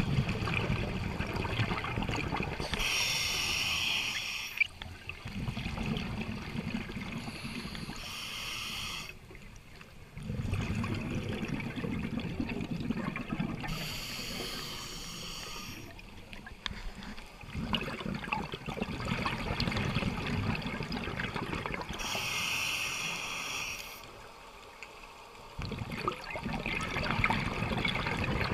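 Scuba diver breathing through a regulator, heard through an underwater camera housing. Short hisses come about four times, and between them run longer stretches of rumbling, bubbling exhaust.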